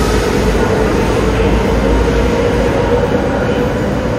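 E5 series shinkansen moving along the platform: a steady rumble with a whine that rises slightly.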